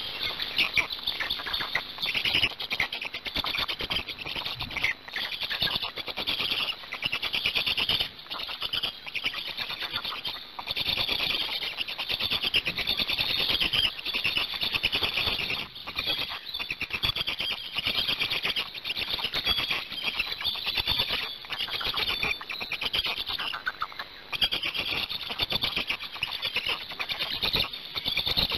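Black stork chicks begging at the nest: a rapid, high-pitched chittering that runs almost without a break, with a few short pauses.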